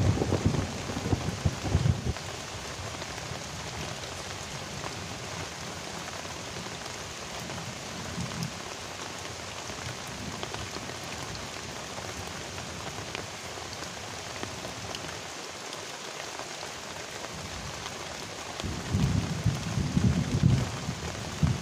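Heavy rain falling steadily, an even hiss of drops on the river and foliage. A louder, ragged low rumble sits under it in the first two seconds and again near the end.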